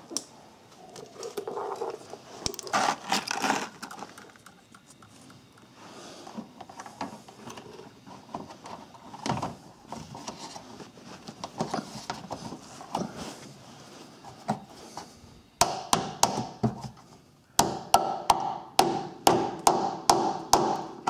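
Handling and scraping of a plastic splash shield, then a run of sharp taps, about two a second, over the last five seconds: push-in plastic retainers being tapped home to hold the shield on.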